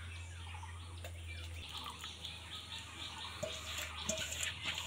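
Faint chirping of small birds, with soft wet slopping and clinks of a steel bowl in the last couple of seconds as thick grated mango pulp is poured onto a straining net.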